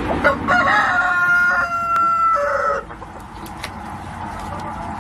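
Rooster crowing once: a single cock-a-doodle-doo of several joined notes, ending in a longer final note and cutting off just under three seconds in.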